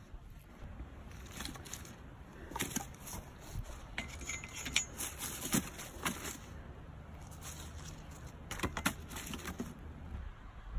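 Dry sticks and branches knocking and clattering together as they are gathered and laid into a metal fire ring, with an irregular scatter of sharp clacks.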